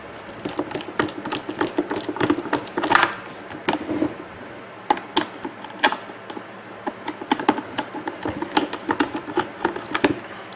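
Parts of a Black & Decker coffee maker being handled and worked apart: a busy run of irregular clicks, taps and light knocks, the loudest around three seconds in.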